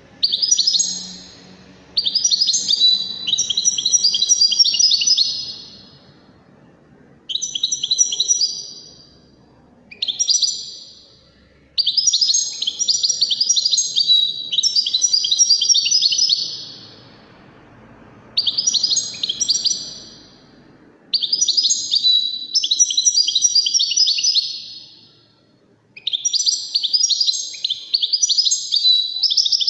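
European goldfinch singing: rapid phrases of short, quick-changing notes, delivered in about eight bursts of one to five seconds with brief pauses between them.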